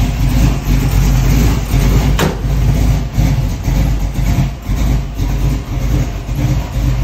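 1979 Chevrolet Camaro Z28's rebuilt V8 idling, loud, with an uneven, pulsing beat. A single sharp click about two seconds in.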